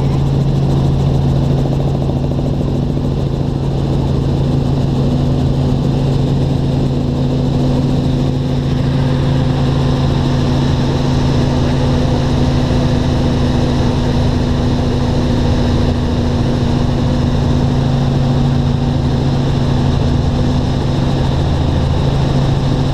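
Helicopter in flight: turbine and rotor noise making a loud, steady drone with a strong low hum and a fainter higher hum, unchanging throughout.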